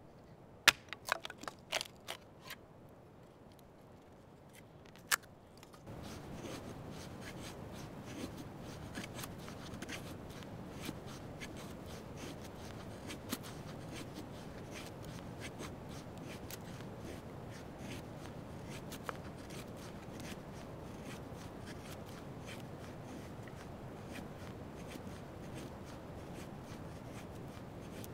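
A few sharp knocks of a steel knife and split sticks against a wooden stump. About six seconds in, this gives way to an ESEE-5 fixed-blade knife shaving a dry stick into a feather stick: a steady scraping of blade on wood dotted with small crackling ticks as the curls peel off.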